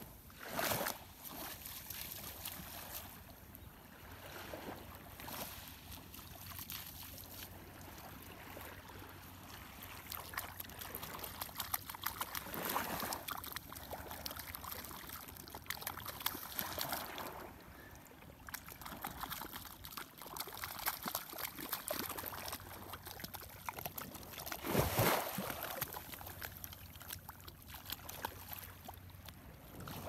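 Small sea waves lapping on a sandy shore, swelling and fading every few seconds, with water trickling.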